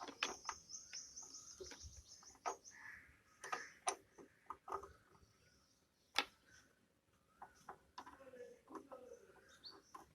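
Light clicks and knocks from handling a valve-radio chassis and its Bakelite cabinet, the loudest a sharp knock about six seconds in. A bird chirps a quick run of high notes in the first two seconds.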